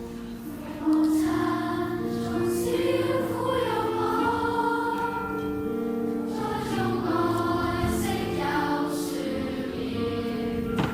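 Choir singing a sacred song, picked up live by the microphone in the performance hall; the voices come in strongly about a second in and hold long, sustained notes.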